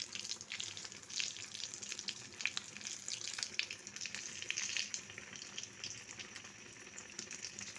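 Bread-coated egg and potato balls deep-frying in hot oil over a low flame: a steady sizzle full of small crackles and pops. The crackling is busier for the first five seconds or so, then thins out.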